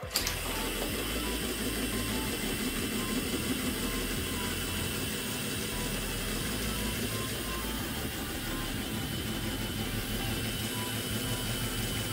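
Hornby 00-gauge Smokey Joe model locomotive running on track with the breakdown crane wagons in tow: a steady whirr of its small electric motor and the rattle of wheels rolling on the rails, starting abruptly and holding an even level.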